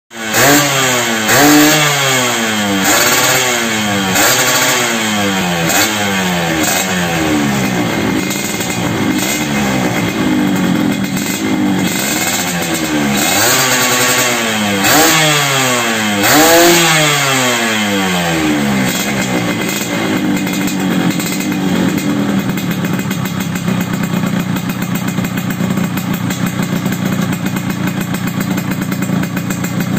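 Yamaha RX-King's two-stroke single-cylinder engine blipped repeatedly through a 3V3 underslung racing exhaust, the revs shooting up and falling back about once every one and a half seconds. About 18 seconds in the blipping stops and the engine settles into a steady idle.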